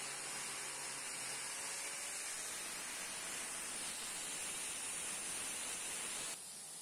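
Steady hiss, dropping suddenly to a quieter hiss near the end.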